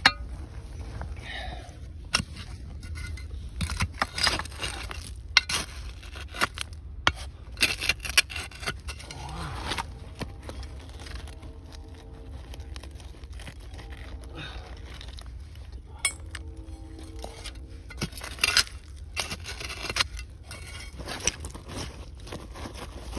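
A hand digging tool scraping through dirt around a buried bottle, with repeated sharp clinks and knocks where it strikes glass.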